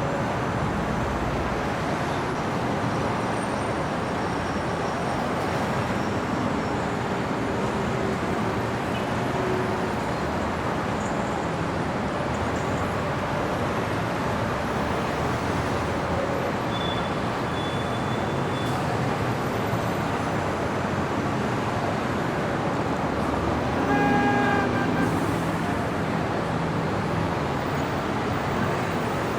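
Steady city street traffic noise, with a vehicle horn sounding once for about a second toward the end.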